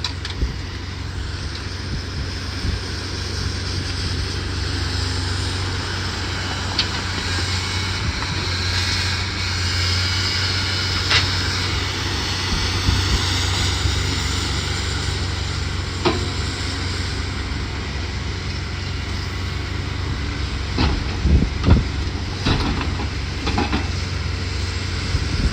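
Diesel engine of an excavator running steadily, with a few sharp knocks and clanks scattered through, several in close succession near the end.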